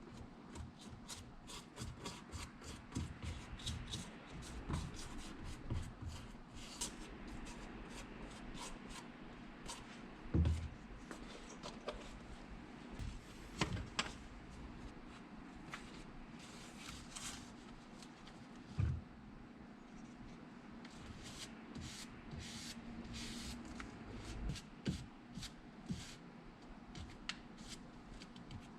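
Hand tools and shoe material being handled during a boot lining repair: irregular clicks, snips and scratchy rustles, some in quick runs, with a few louder knocks. A faint steady low hum runs underneath.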